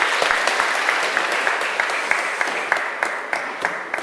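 Audience applauding: dense, many-handed clapping that starts to thin out and fade near the end.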